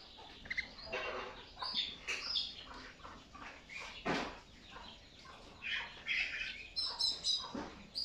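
Several yellow canaries in a wire cage chirping and calling, in many short scattered notes rather than a continuous song.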